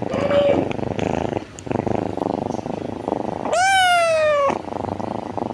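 A kitten purring steadily, with one loud meow about three and a half seconds in that falls slightly in pitch. The purring is a sign of a contented, happy kitten.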